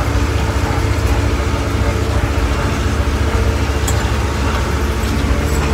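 Same 95-horsepower tractor engine running steadily under load, heard inside the cab, as it pulls a mower-conditioner cutting hay.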